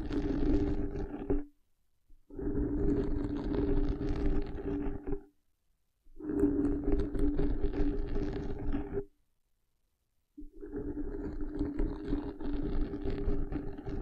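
Fingertips scratching and rubbing directly on a condenser microphone's head, in stretches of about three seconds with short silent pauses between. A low steady hum comes and goes with each stretch.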